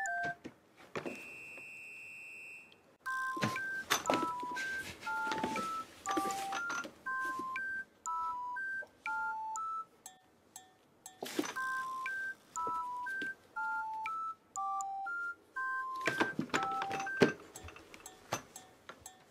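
Background music: a sparse melody of pure, beep-like notes stepping up and down, with one held high tone about a second in. Scattered clicks and rustling sound underneath.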